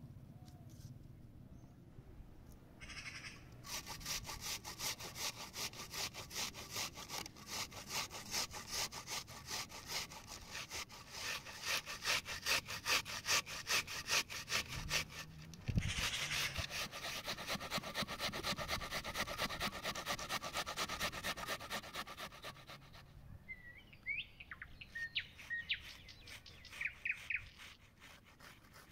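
Onion rubbed against the blades of a stainless-steel box grater in steady rasping strokes, about two a second. Birds chirp a few times near the end.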